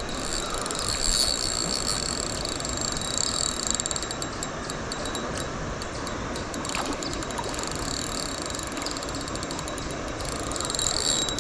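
Fishing reel ratcheting in runs of rapid fine clicks as a hooked trout is played, over the steady rush of river water.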